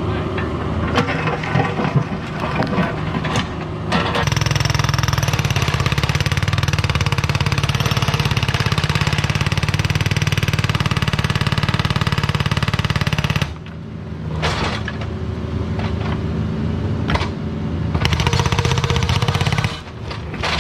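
Mini excavator's diesel engine running with scattered clanks. About four seconds in, a hydraulic breaker starts hammering rock with a rapid, even pounding, then stops suddenly after about nine seconds, leaving the engine running.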